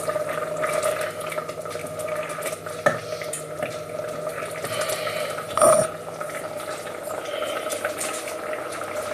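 Stock being ladled into a pan of risotto and stirred: liquid pouring and sloshing with small clinks of a utensil against the pans, and a sharper knock a little past halfway, over a steady background hum.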